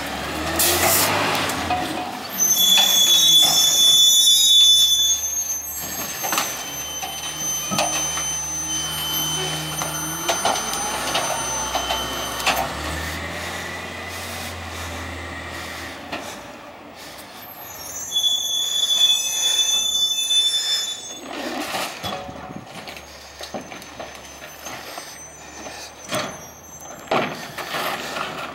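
Peterbilt 348 natural-gas rear-loader garbage truck running, with high-pitched brake squeal twice as it pulls up to stop, about two seconds in and again about halfway through. Later come a few sharp knocks as carts are handled at the rear.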